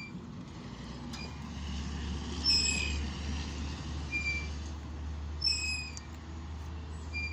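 Metal chain swing squeaking in short high-pitched squeaks about every second and a half as it swings back and forth, over a steady low rumble.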